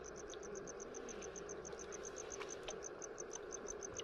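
An insect chirping steadily in a fast, even train of high pulses, about seven a second, over a faint steady background hiss.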